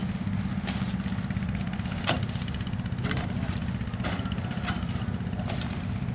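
Kubota combine harvester's diesel engine running steadily with a rapid low pulse, and several sharp clicks or knocks at irregular moments.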